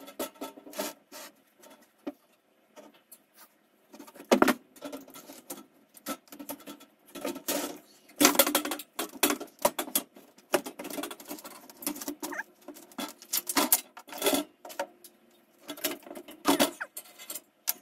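Metal clunks, scrapes and rattles as a small engine is worked by hand into a steel-tube trike frame from underneath, with sharper knocks about four, eight and sixteen seconds in.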